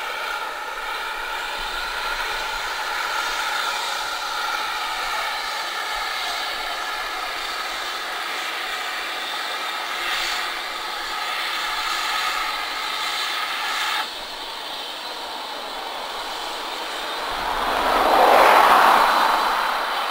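Double-headed steam train, GWR Large Prairie tank engine and Manor-class 4-6-0, running past with its coaches: a steady mechanical drone with some held whining tones, which changes abruptly about two-thirds of the way through. Near the end a loud rushing swell builds and fades.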